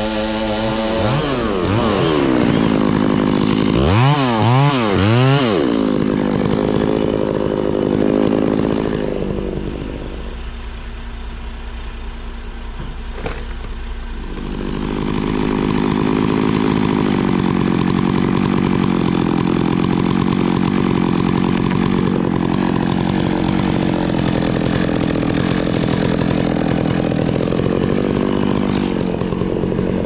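Stihl chainsaw revving up and down several times in the first few seconds, dropping back to a lower speed about ten seconds in, then running steadily at high speed under load as it cuts through a large tree trunk.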